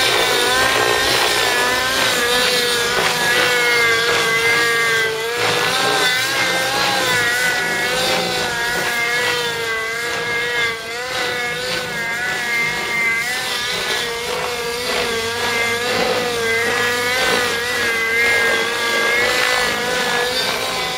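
Outrage Velocity 50 nitro RC helicopter's engine and rotor blades running in flight, the engine note wavering up and down continuously as it is thrown through aerobatic manoeuvres.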